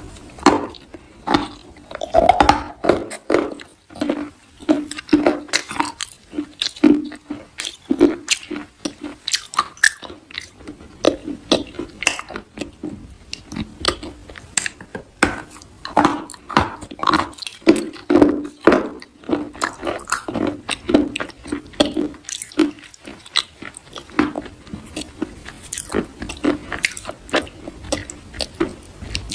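Soft crunching, close up: many quick, irregular crunches one after another, like something crunchy being bitten or crushed.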